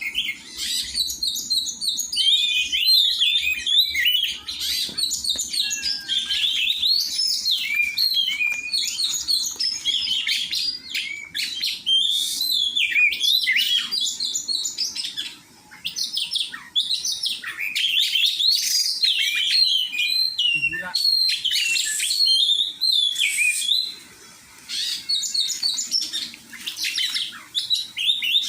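Oriental magpie-robin (kacer) singing, a fast, continuous, varied run of high chirps, whistles and trills, with short breaks about halfway through and again near the end.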